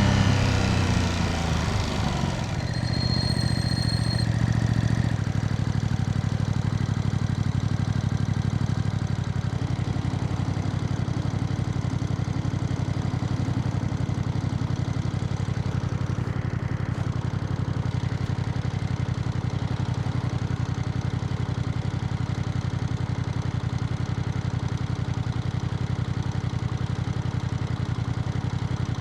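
Ducati Panigale V2S V-twin engine coming down in revs as the bike slows, then idling steadily.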